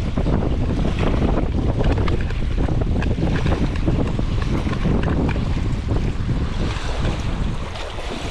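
Wind buffeting the microphone with a heavy, gusty rumble, over the wash of sea waves.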